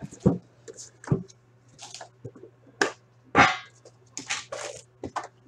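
Plastic wrap and a cardboard trading-card box being handled while a tin of hockey cards is unpacked: irregular crinkling rustles and small clicks, the loudest about three seconds in. A faint low steady hum runs underneath.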